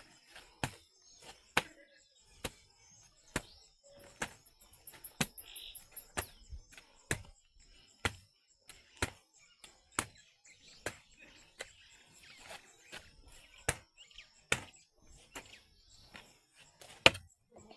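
Rhythmic strikes of a hand tool digging into wet soil, about one blow a second, with a sharp, loud blow near the end.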